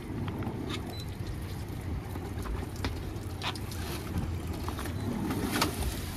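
A cast net being hauled aboard and shaken out over the boat's livewell: a few scattered knocks and clicks, the sharpest about five and a half seconds in, over a steady low rumble of wind on the microphone.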